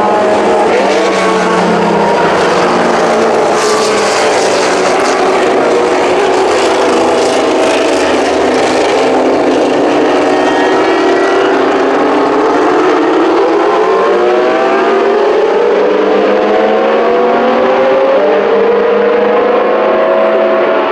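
Several historic Formula One cars running together, the Lotus 97T's turbocharged V6 among them. Their overlapping engine notes rise and fall in pitch as they accelerate and lift, with a long climb in pitch in the second half.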